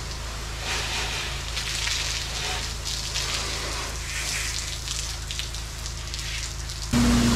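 Pressure washer spray hissing and spattering as it washes a screened pool enclosure, rising and falling as the wand moves, over a steady low machine hum. Near the end the sound cuts abruptly to a louder steady drone with low tones.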